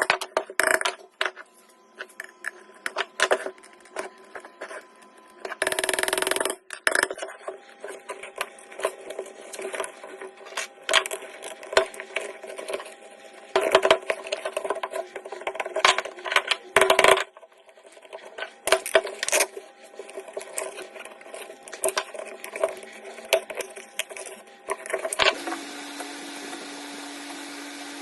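Hard objects being handled, with irregular knocks, clicks and clatter and a brief scraping burst about six seconds in. About twenty-five seconds in, a small motor starts and runs with a steady hum.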